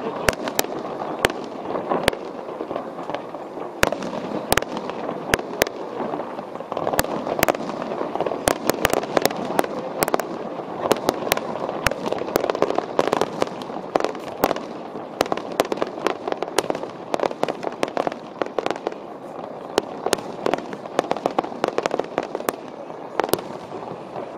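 Aerial fireworks shells bursting in quick succession: a continuous run of sharp bangs and crackles, several a second at times, over a steady wash of background noise.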